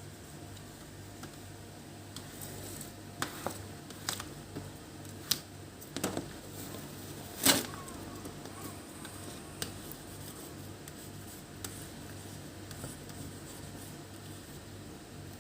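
Scattered light clicks and knocks from handling work, the loudest about seven and a half seconds in, over a steady low hum.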